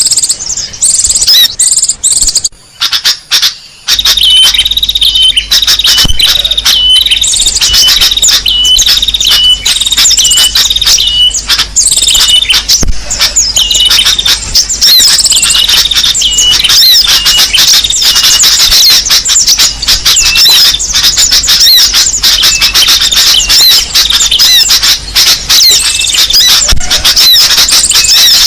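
Bird-lure recording of small songbirds: a loud, dense clamour of rapid high chirps and squeaky calls, with repeated short notes. There is a brief break a few seconds in, after which a steady low hum runs beneath the calls.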